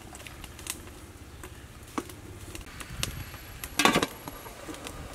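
Light metallic clinks of a spoon and lid against a large aluminium cooking pot, with a louder clatter of several clinks about four seconds in.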